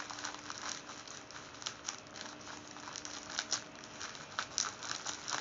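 Bubble-wrap plastic packaging crinkling and crackling in irregular small bursts as it is handled and cut open with scissors.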